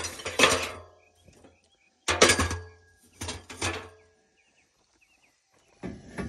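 Battery-powered pipe-cutting tool working through thick copper pipe in short stretches, its motor humming under sharp metallic clinks of copper. It stops about four seconds in.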